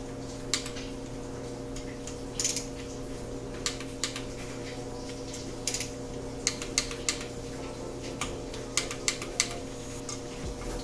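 Sharp metallic clicks and taps from hand tools on the stator screws, irregular and sometimes in quick clusters, over a steady low hum.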